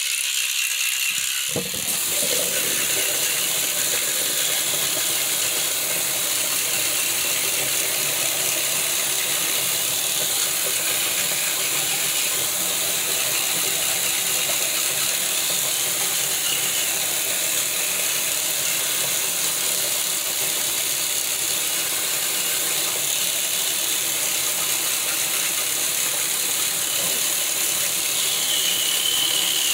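Electric toothbrush running during tooth brushing, a steady mechanical buzz close to the microphone; its lower tones fill in about a second and a half in.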